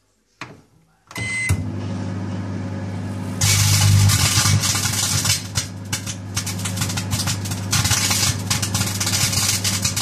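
Microwave oven clicks, starts with a short beep, and runs with a steady low hum. From about three seconds in, the CD inside arcs, adding loud, irregular crackling over the hum that keeps on in surges.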